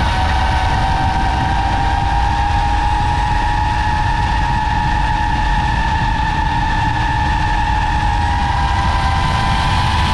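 DJI FPV drone's motors and propellers whining steadily in flight, the pitch shifting a little with the throttle, over a heavy low rumble of wind on the microphone.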